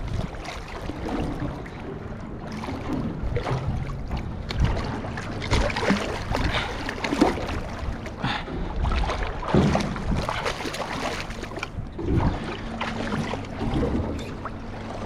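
A boat's motor idling in a steady low hum, with irregular knocks on the hull and splashing water.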